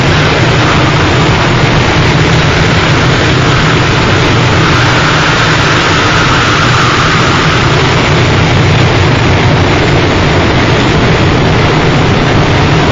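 Harsh noise music: a loud, unbroken wall of dense noise over a steady low hum, with a brighter hiss swelling for a few seconds midway.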